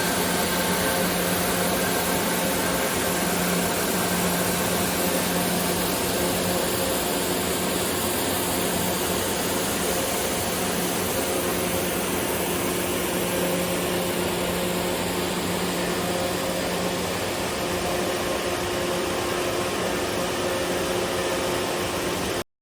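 Ski-slope snowmaking guns running: a loud, steady hiss of air and water spray with a steady low hum under it. It cuts off suddenly near the end.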